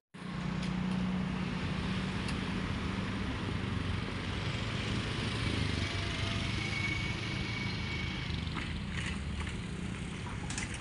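Road traffic passing, mostly small motorcycles with a car, making a steady engine and tyre hum.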